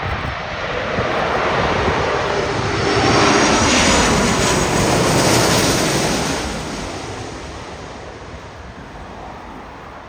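Large jet airliner passing low overhead on its landing approach: the engine noise swells to a peak about four seconds in, with a faint whine falling in pitch as it goes by, then fades away.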